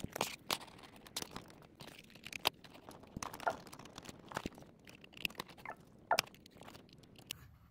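Cables and connectors being handled and plugged into a small plastic HDMI KVM switch: irregular light clicks, taps and rustles of cords sliding over a laptop lid.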